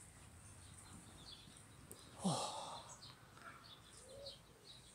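A man lets out one short, breathy sigh with falling pitch about two seconds in. Otherwise it is quiet, with faint bird chirps.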